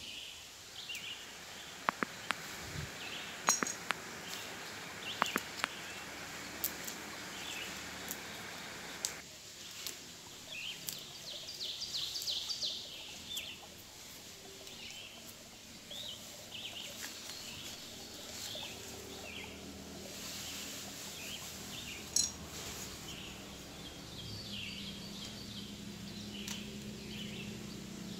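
Small birds chirping over and over in short calls, with a few sharp clicks and snaps from a knife cutting the plastic ties on a potted grape cutting. A faint low drone comes in near the end.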